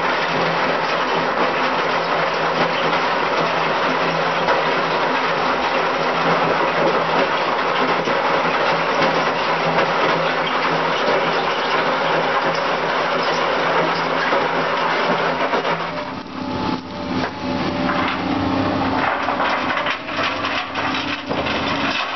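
Excavator-mounted cone crusher attachment running and crushing stone, a dense steady noise with a low hum while crushed gravel pours out below. About sixteen seconds in the sound drops and changes to a steadier hum with scattered knocks of stone.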